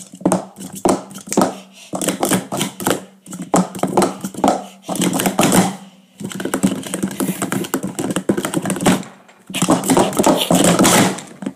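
Plastic speed-stacking cups clacking rapidly against each other and on a StackMat mat as they are stacked up and down, in quick flurries of clatter with short pauses between them. A low steady hum runs underneath.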